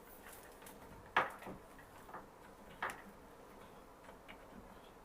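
A few small, sharp clicks and taps from hands and tools working on network cable wiring: the loudest about a second in, a second clear one near three seconds, and fainter ticks between.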